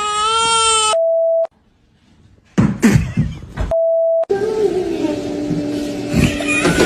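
A drawn-out wailing cry that cuts off abruptly into a steady beep. After a pause come a few sharp knocks, then a second identical beep of about half a second, followed by voices.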